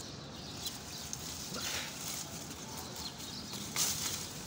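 Leaves and twigs of a custard-apple tree rustling as a fruit is grasped and pulled off the branch, with a few brief crackles, the loudest near the end.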